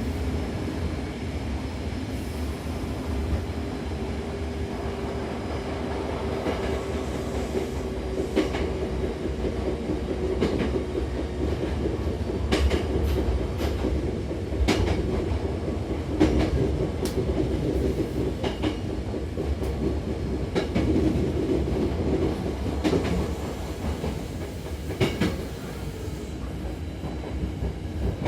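Hankyu commuter train running between stations, heard from inside the car. There is a steady rumble with a humming tone, and irregular clicks as the wheels pass over rail joints.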